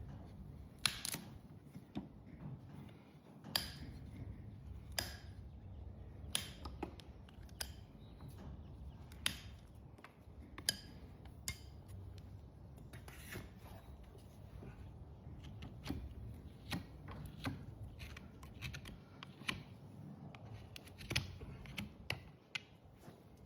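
Hoof nippers cutting through overgrown horse hoof wall: a string of sharp snips and cracks, one every second or two.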